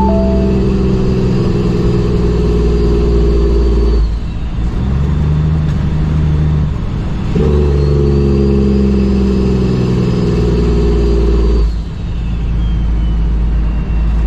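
Cummins ISX diesel in a 2008 Kenworth W900L, heard from the cab, pulling under load with a high whine that rises as it pulls. It lets off about four seconds in, runs lighter for a few seconds, then pulls hard again until it eases off near the end, as when working up through the gears.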